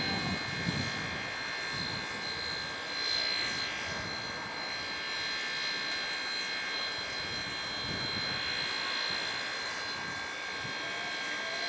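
BB18¼ class steam locomotive standing at the platform, giving off a steady hiss with several high whining tones, and a few soft low thumps near the start, about three seconds in and about eight seconds in.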